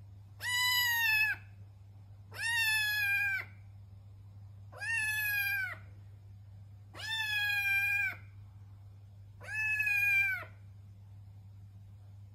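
Tabby kitten meowing five times, each call about a second long and held at a fairly steady high pitch, spaced a couple of seconds apart.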